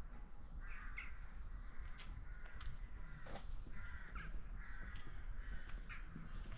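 Crow-family birds cawing repeatedly, short harsh calls coming one or two a second, over a steady low rumble. A single sharp tap about three seconds in.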